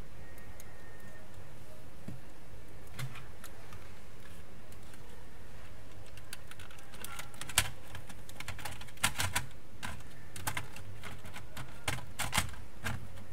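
Sharp plastic clicks and taps from a PlayStation 4 Slim's casing panel being handled and fitted by hand, sparse at first and then a quick cluster of clicks in the second half, over a steady low hum.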